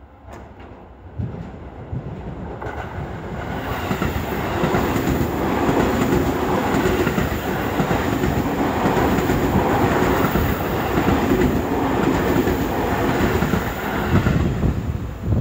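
Stainless-steel electric commuter train passing close by: the rumble and the clatter of its wheels build over the first few seconds, then stay loud as the cars go by.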